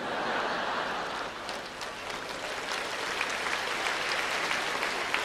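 Large audience laughing and applauding in a hall after a punchline, with the clapping building up about a second and a half in.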